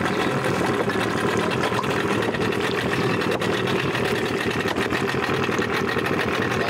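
Boat engine running steadily at idle, a continuous low hum with a fast fine ticking.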